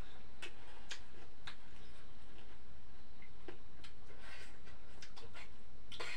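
Scattered, irregular light clicks and taps of people eating a meal by hand from plates and dishes, over a steady low rumble.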